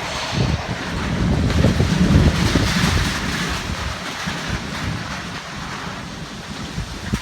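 Storm wind gusting hard on the microphone over a steady hiss of heavy rain, the gusts swelling about two seconds in.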